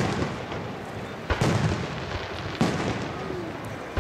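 Aerial firework shells bursting in a display: sharp bangs about every second and a quarter, four in all, each trailing off before the next.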